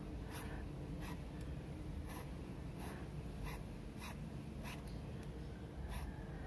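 Metal file scraping a small plastic part in short, repeated strokes, about two a second, rounding it into a ball joint.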